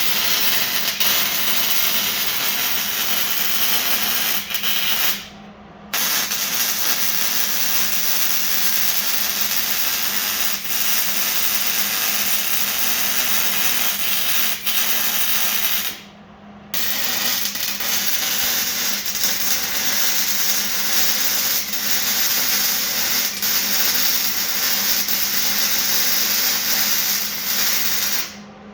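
MIG welder laying beads on a steel frame stiffener: a steady frying crackle of the arc with a faint hum underneath. It is broken by two short pauses, about five seconds in and about sixteen seconds in, as the trigger is released between welds.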